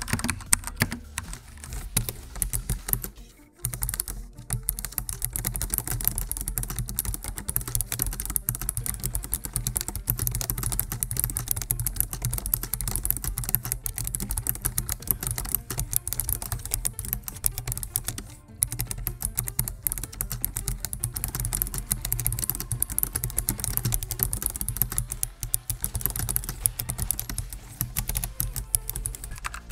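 Rapid, continuous typing on a gaming keyboard, with a brief pause about three and a half seconds in.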